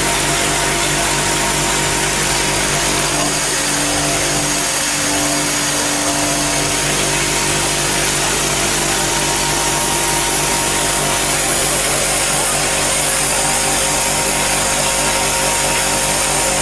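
Vibratory bowl feeder running, with clear plastic pen barrels rattling continuously in the bowl: a steady hum under an even rattling hiss.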